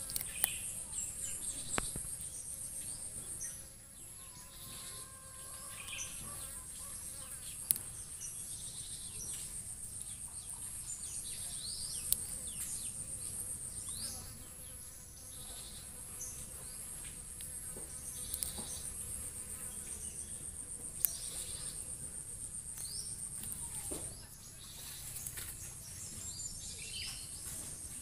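Insects trilling in a steady, rapidly pulsing high drone that drops out briefly a few times, with scattered short high chirps and a few sharp clicks.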